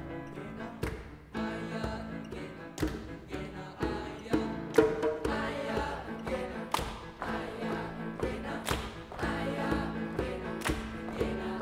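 Mixed youth choir singing in parts, accompanied by a hand drum struck about once a second.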